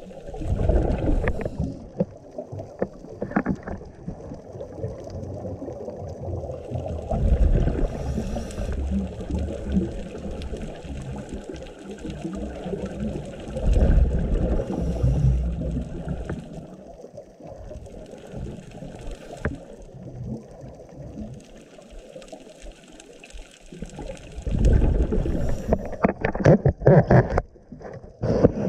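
Scuba regulator breathing heard underwater: muffled bubbling rumbles of exhaled air that swell and fade in bouts every several seconds.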